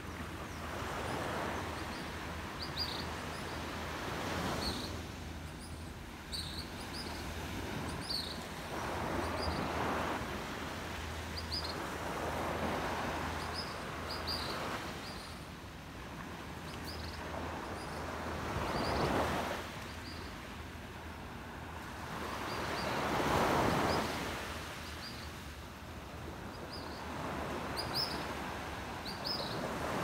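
Surf washing onto a sandy beach, swelling and falling every few seconds. Short, high bird chirps come and go throughout.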